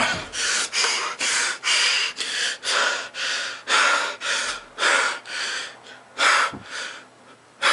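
A man panting hard and fast, short heavy breaths about three a second, close to the microphone, out of breath from vigorous dancing and punching moves; the breaths slow and weaken near the end.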